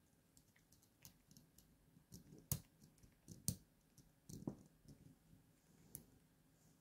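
Faint, scattered light metal clicks and taps of a spring bar tool working at a watch case's lug to fit a metal bracelet, with two sharper clicks about a second apart near the middle.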